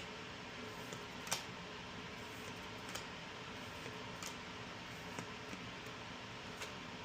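Faint steady hiss with a handful of soft, sharp clicks spaced a second or more apart: trading cards and booster packs being handled.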